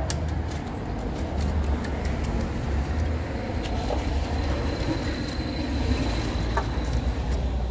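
A steady low rumble, with scattered light scrapes and knocks from a long-handled hand tool spreading wet concrete.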